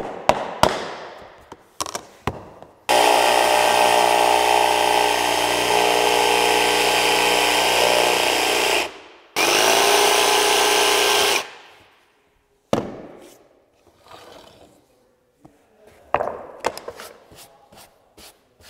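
A few sharp knocks of a hammer tapping a vinyl plank into place, then a cordless jigsaw cutting a vinyl plank: one run of about six seconds that spins down, a short pause, and a second run of about two seconds. Scattered light knocks follow as the cut pieces are handled.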